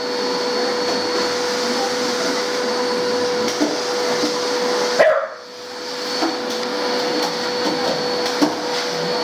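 A vacuum cleaner runs with a steady whine, which dips sharply for a moment about five seconds in and then recovers. Over it a dog gives a few short barks and whimpers at the machine.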